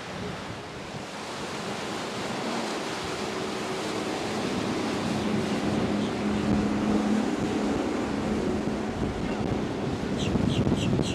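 Breaking surf and wind buffeting the microphone as a center-console boat runs through rough inlet waves. The boat's engine drones steadily underneath, growing louder from about two seconds in. Near the end there is a quick run of about six short, high chirps.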